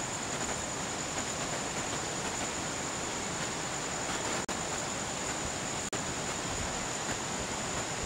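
Steady, even rushing noise with a thin high whine above it, broken by two very brief dropouts about halfway through and again a second and a half later.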